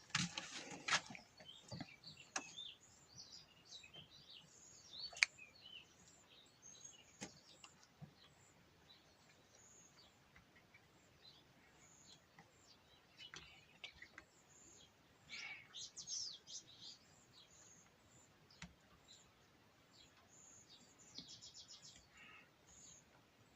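Faint birds chirping in the background, short high calls scattered throughout and a quick trill near the end, with a few sharp clicks, the loudest about five seconds in.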